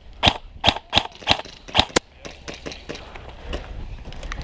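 An airsoft gun firing a quick string of about six single shots in the first two seconds, a few tenths of a second apart. Fainter sharp clicks and shots follow.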